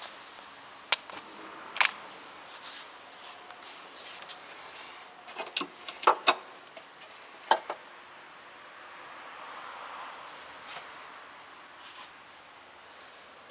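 Irregular sharp clicks and knocks from a Toyota Esquire while driving, loudest in a cluster about six seconds in, over a faint steady noise: the abnormal noise that the owner links to a shock absorber.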